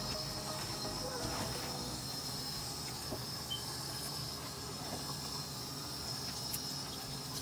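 A thin stream of water trickling from a kitchen faucet into a stainless steel sink, over a steady faint high whine.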